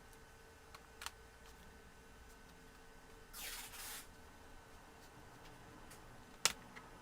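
Plastic netbook casing parts being handled during disassembly: a light click, a short scraping rustle, then a sharper plastic click near the end.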